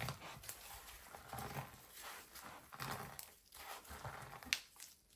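A whole pomegranate rolled back and forth under gloved hands on a bamboo cutting board: repeated rubbing strokes with faint crackling as the seeds loosen and their skins break inside. A sharp tick comes about four and a half seconds in.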